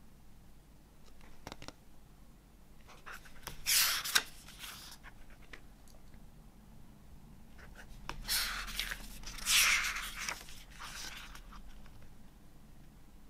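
Paper pages of a CD box-set booklet being turned by hand: a few short rustling swishes, the loudest about four seconds in and again around nine to ten seconds in.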